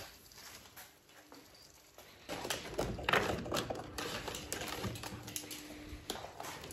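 Hands working a car wiring harness and its plastic connectors: irregular light clicks and rustles. They start about two seconds in, after a faint start.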